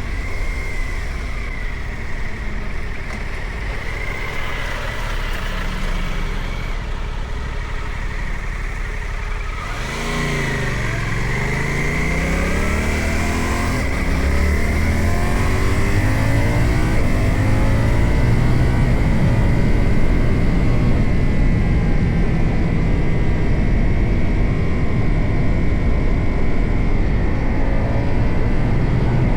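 Suzuki GSX-8R's parallel-twin engine running on the road, with wind noise. About ten seconds in, the engine note drops as the bike slows, then rises steadily as it accelerates, and the wind grows louder for the rest of the ride.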